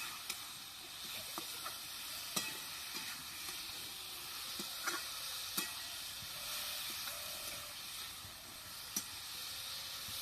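Food sizzling in hot oil in a cooking pan as it is stirred, a steady frying hiss with a few sharp clicks of the utensil against the pan.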